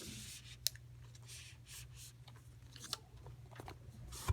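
Cardboard and paper packaging of an Apple Watch box being handled as its contents are pulled out: soft rustling with a few small sharp clicks, over a faint steady hum.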